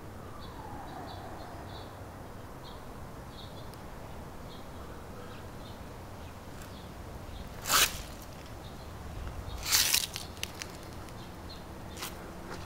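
Outdoor ambience: short, faint, high chirps repeating over a steady low background rumble, broken by two loud, brief bursts of noise about eight and ten seconds in and a click near the end.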